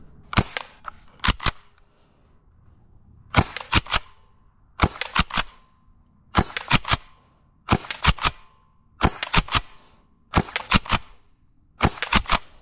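Airsoft pump-action shotgun being racked and fired again and again, about nine times at a steady pace of roughly one shot every second and a half. Each shot is a quick cluster of sharp plastic-and-metal clacks.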